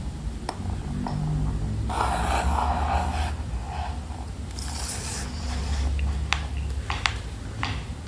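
Pencil scratching along a plastic ruler on paper in two strokes, followed by several sharp clicks and taps as the plastic ruler is lifted and set down again. A steady low hum sits underneath.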